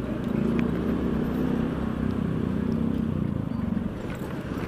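Honda Beat 110 FI scooter's single-cylinder four-stroke engine running at low speed while riding, easing off briefly near the end.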